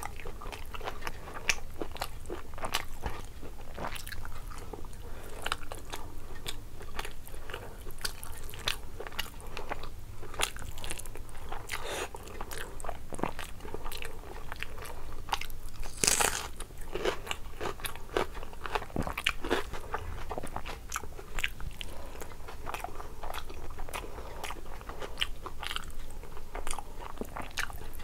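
A person eating rice and curry by hand and chewing, a dense run of short wet mouth clicks, with a louder burst about sixteen seconds in.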